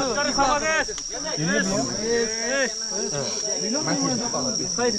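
Several people's voices overlapping at once, with a steady high chirring of crickets behind.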